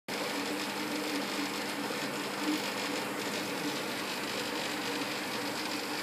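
Steady hum and hiss of aquarium aeration: an air pump buzzing while a stream of bubbles rises from an air stone.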